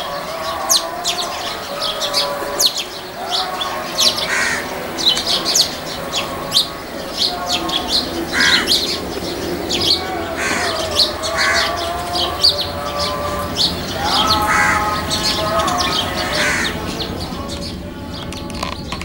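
Birds calling: many quick high chirps, with harsher repeated calls every second or two. Underneath runs a steady low rumble from a distant departing jet.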